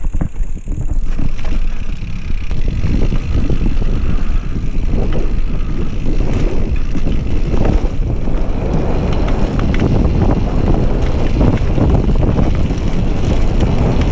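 Wind buffeting the microphone of a camera riding on a mountain bike at speed down a dirt trail. Under it are the tyres rolling and the bike clattering over bumps in quick irregular knocks. The noise builds over the first couple of seconds and then holds.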